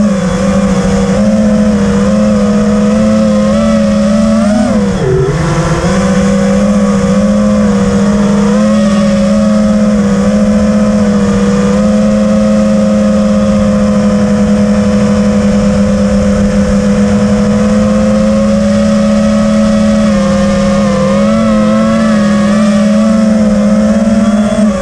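FPV quadcopter's brushless motors whining steadily, heard through the onboard camera. The pitch dips briefly about five seconds in as the motors slow, then comes back up, with small rises and falls later on.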